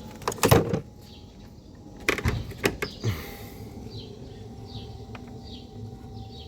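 Two short clusters of sharp clicks and knocks, about half a second in and again around two to three seconds in, with a brief hiss after the second, over small birds chirping repeatedly in the background.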